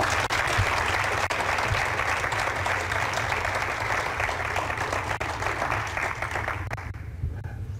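Audience applauding at the end of a talk, a dense even clatter of many hands that dies away near the end, over a low steady hum.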